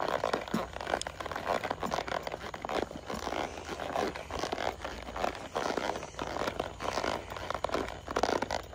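A gray mustang moving at a quick gait on soft arena dirt, heard from the saddle. Its hoofbeats and the scrape and crunch of the footing come in a steady rhythm of about one stride a second or a little faster.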